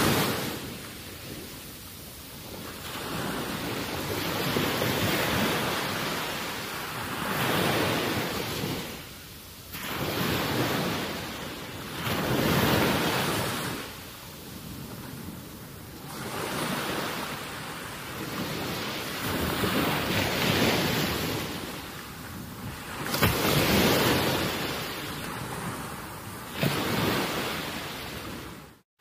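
Outdoor wind and water noise at the shoreline: a hiss that swells and eases every two or three seconds. It cuts out briefly near the end.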